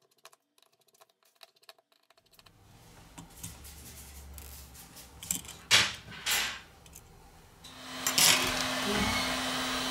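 Faint ticks of a small screwdriver working the tiny screws of a phone's metal motherboard cover, then a few louder handling knocks and scrapes. From about eight seconds in, a steady hiss with a low hum.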